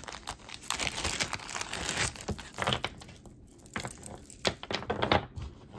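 Wrapping crinkling and rustling as a piece of jewelry is unwrapped by hand, dense for the first few seconds, then thinning to a few sharp clicks and rustles.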